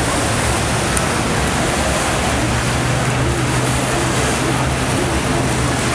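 Motorboat engines running, with a steady rush of splashing water and wake from the choppy river; a low engine hum grows stronger about two and a half seconds in.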